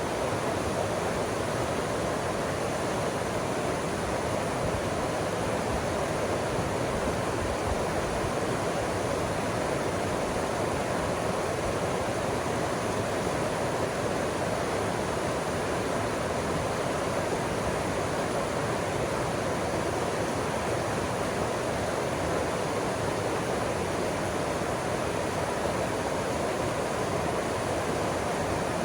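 Steady rushing of moving water, an even roar with no rise and fall.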